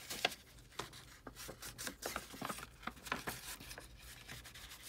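Paper rustling as a sheet of copy paper is folded and handled, with the scuffing of a round ink blending tool rubbed along the fold. It comes as an irregular string of small rustles and taps.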